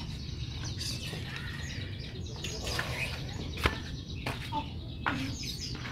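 Yamaha Mio Sporty's small single-cylinder four-stroke engine idling steadily, with a rough noise from the CVT that the mechanic traces to the kick-starter pin rubbing on the pulley shaft. Birds chirp over it several times.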